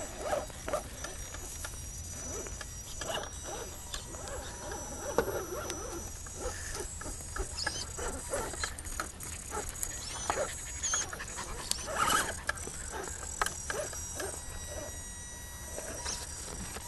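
Axial SCX10 RC rock crawler's electric motor and gearing whining steadily at a high pitch as it crawls over rocks, with scattered short knocks and scrapes.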